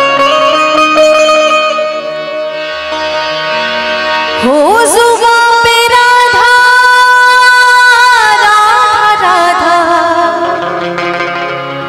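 Harmonium playing a melodic phrase, then about four seconds in a woman's voice enters with a rising glide, holds a long note with vibrato, and comes down through ornamented runs over the harmonium. This is a devotional bhajan sung live.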